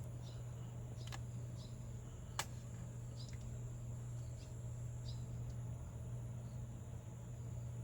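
Faint outdoor ambience: short high chirps come irregularly, about every second or so, over a steady low hum. Two sharp clicks sound about one and two and a half seconds in, the second one louder.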